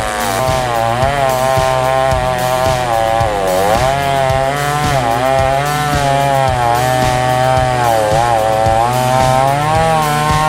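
Chainsaw cutting wood, its engine pitch repeatedly dipping under load and climbing back as the chain bites and frees.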